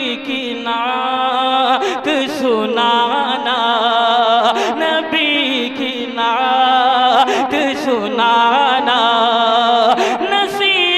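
A man chanting a naat in long, drawn-out phrases, holding and ornamenting wavering notes, with short breaks between phrases.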